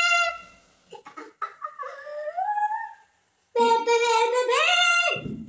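A young girl's wordless sing-song vocalising: a rising, gliding note about a second in, then a longer, louder held note near the end that drops sharply in pitch.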